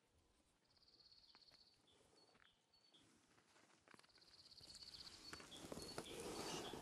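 Near silence outdoors: a faint, high, finely pulsed trill from a small animal sounds twice, with a few short high chirps between. Rustling with small clicks grows louder over the last two seconds.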